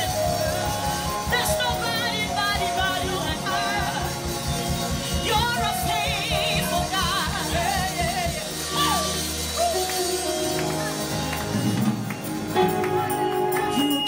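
Live gospel worship music: a woman singing into a microphone over a band of keyboard, drums and bass guitar, with a steady beat that thins out about two thirds of the way through.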